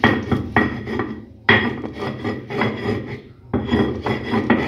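Stone hand roller (metlapil) grinding over a stone metate, crushing nixtamal corn kernels in quick back-and-forth strokes, about three a second, breaking off briefly twice. The corn is being cracked coarsely, not ground fine.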